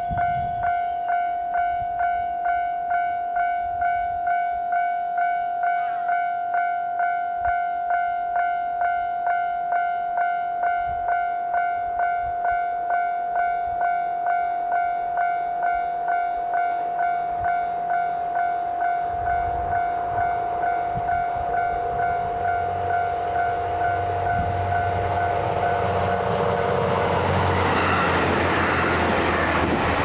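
Japanese level-crossing warning bell ringing in an even, rapid rhythm, about one and a half strikes a second. Over the last few seconds a JR Hokkaido H100 diesel-electric railcar approaches, and the engine and wheel noise grows louder until it covers the bell.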